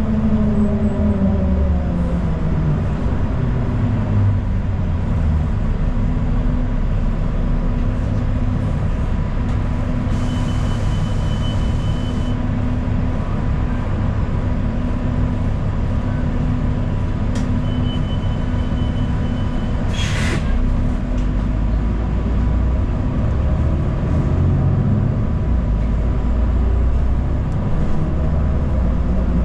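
Steady engine and road rumble heard from inside a city transit bus. A brief hiss with a thin high tone comes about a third of the way through, and a short sharp click or squeak comes about two-thirds of the way in.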